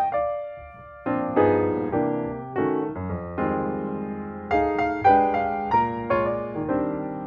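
Background piano music: struck notes and chords that ring and fade, with a brief lull about a second in before the playing picks up again.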